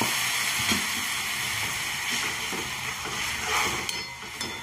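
Water sizzling and hissing in a hot kadhai of oil-fried vegetables just after it has been poured in, the sizzle gradually dying down.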